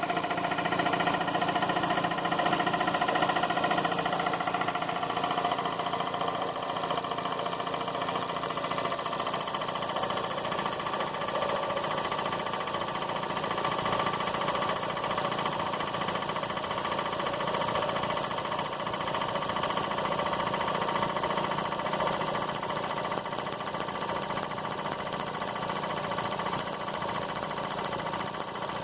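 Emglo K15A-8P air compressor's motor and pump running steadily, just switched on in constant-run mode and pumping up the tanks from about 70 psi.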